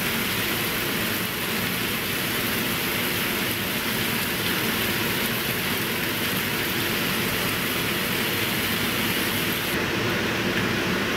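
Gopchang stir-fry sizzling steadily in a hot nonstick frying pan, an even hiss like rain.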